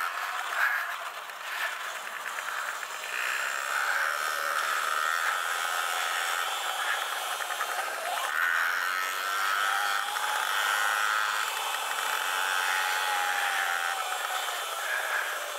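Sur-Ron Light Bee electric dirt bike being ridden on a dirt track: a high motor and drivetrain whine that rises and falls in pitch with the throttle, over a steady rushing noise.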